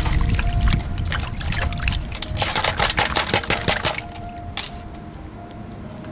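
Water splashing and trickling in a steel basin as hands handle live Chinese mitten crabs, busiest from about two and a half to four seconds in, under light background music.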